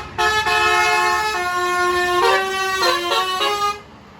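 Bus telolet horn, a multi-trumpet musical air horn, playing a quick stepping melody with several notes sounding together. It breaks off briefly just after the start and stops shortly before the end.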